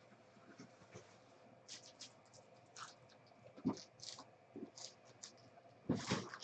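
Trading cards and plastic sleeves being handled: faint scattered clicks and rustles at irregular intervals, with a louder one near the end.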